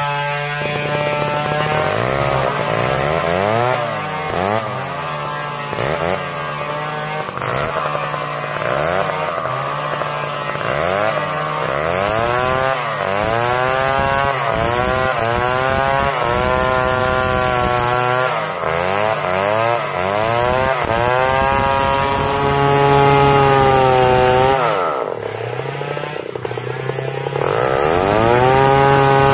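Stihl 070 two-stroke chainsaw cutting through a felled log at high revs, its engine pitch repeatedly sagging as the chain bites into the wood and climbing again as it frees. About four fifths of the way through, the revs drop for a couple of seconds, then rise back to full speed.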